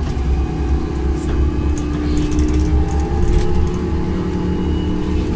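Cabin noise inside a moving BRT Sunway Line bus: a steady low rumble with a faint hum, and light rattling of fittings around the middle.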